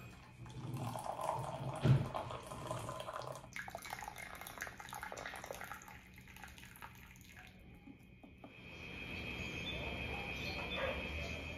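Hot water poured from a kettle into a ceramic mug, with a sharp knock about two seconds in. A steady high trill comes up in the last few seconds.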